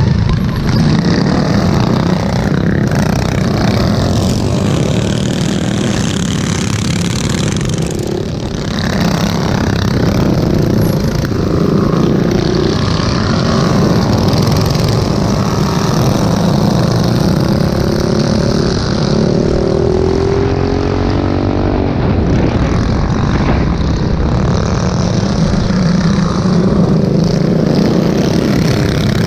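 Small mini bike engines running hard under throttle in a pack, heard from on board one of the bikes. The engine note rises and falls through the turns, with a brief easing about eight seconds in and a falling note around twenty seconds in.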